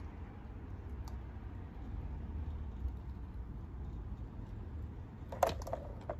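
Small model steam-outline locomotive running slowly along the track with a low steady rumble, then a sharp clatter of clacks about five and a half seconds in and another just before the end as it buffers up against the mail van and couples on.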